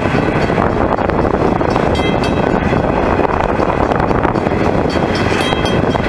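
Coal hopper wagons rolling past, their steel wheels on the rails making a loud, steady rumble, with short high-pitched ringing tones coming and going.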